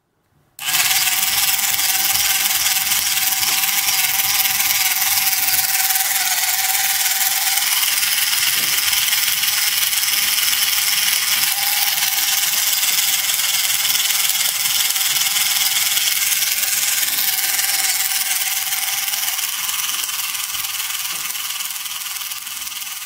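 Small brushed DC motor of a cheap toy robot dog switched on about half a second in and running steadily, with its plastic gear train whirring as it drives the legs and head. The sound grows a little quieter over the last few seconds.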